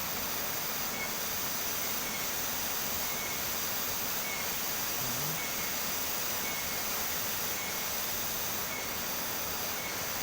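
Waterfall rushing steadily, with a faint short chirp repeating about once a second.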